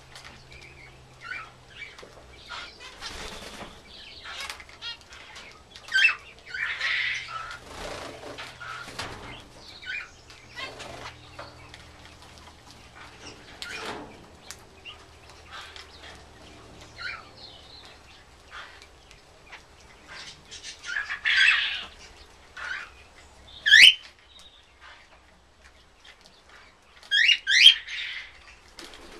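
Zebra finches giving short chirping calls at scattered intervals, with brief flurries of wing flapping as birds come and go. The loudest calls are a quick rising call a little before the end and a quick cluster of calls near the end.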